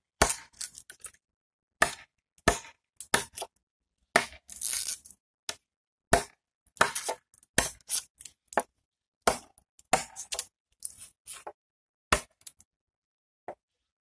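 Heavy straight-ground knife blade chopping a dry American maple branch: a long run of sharp, hard chops, irregular at about two a second, with a short pause near the end.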